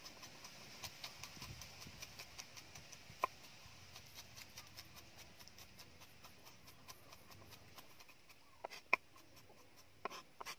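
Cleaver chopping garlic cloves on a round wooden chopping block: a quick run of light knocks, with a few sharper chops about three seconds in and near the end.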